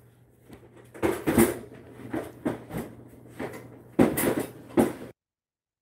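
A string of irregular knocks and rattles, stopping abruptly about five seconds in as the recording cuts off.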